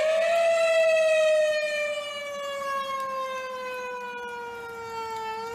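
Outdoor tornado warning siren wailing: one long tone that rises briefly, slowly falls in pitch over several seconds, then begins rising again near the end.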